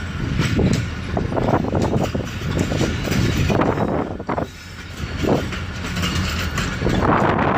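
Train wheels clacking unevenly over rail joints and track switches as the train is shunted slowly, over a steady low rumble.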